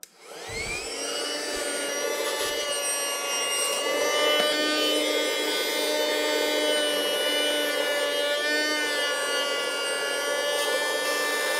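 Small electric air pump switched on, its motor spinning up with a rising whine, then running steadily as it blows air under a raw duck's skin to separate it from the meat. The pitch dips briefly twice as the load changes.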